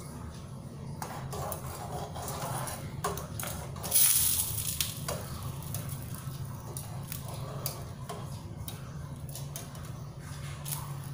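A wire spring whisk stirring hot tea in a small aluminium saucepan, with repeated clicks and scrapes of metal on the pan and one louder, hissy burst about four seconds in, over a steady low hum.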